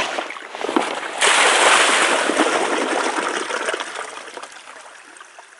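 Water being scooped out of a rock pothole and poured, with splashing that becomes a loud pour about a second in and then fades away.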